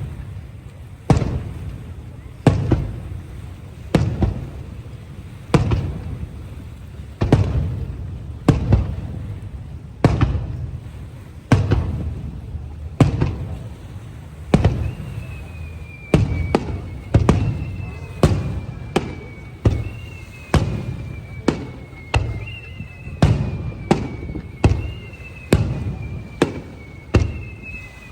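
Aerial firework shells bursting in a steady series of deep booms, each trailing off in echo. They come about one every second and a half, then quicken to roughly two a second in the second half. From about halfway a high whistling tone that falls in pitch repeats with the bursts.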